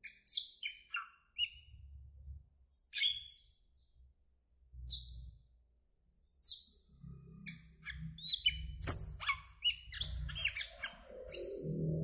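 Asian glossy starling calling: single sharp, high chirps and whistles every second or so, then a rapid run of varied chirps and clicks from about seven seconds in.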